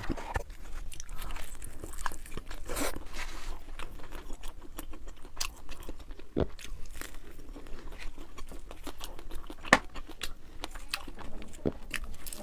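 Someone biting and chewing crunchy food, with irregular crunches and crackles.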